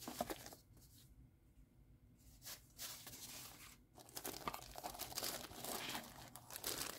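Clear plastic wrap crinkling as a wrapped pouch is handled and lifted out of a cardboard box: a quiet spell early on, then irregular rustling and crinkling from about two and a half seconds in, busiest in the second half.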